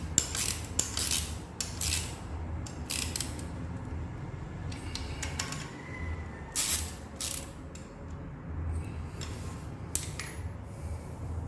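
Intermittent metallic clicks and clinks of hand tools working on an engine's timing-belt drive, with a ratchet among them. The clicks come at uneven intervals, bunched near the start and again about two-thirds of the way in.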